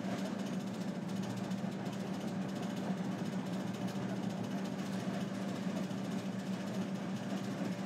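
Steady low hum with an even hiss behind it, the background drone of a small room, unchanging throughout.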